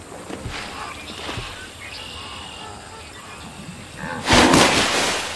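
Cartoon sound effects over a light music bed: two soft thumps as the wildebeest leaps and lands on the crocodile's back, then a sudden loud, noisy crash about four seconds in, lasting about a second, as the crocodile takes the wildebeest.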